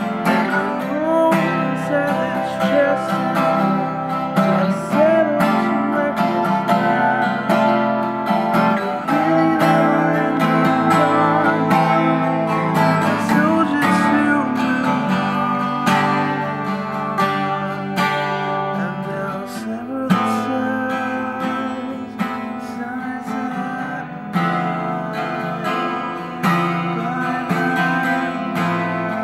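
Twelve-string acoustic guitar strummed in a steady rhythm, with a man singing over it.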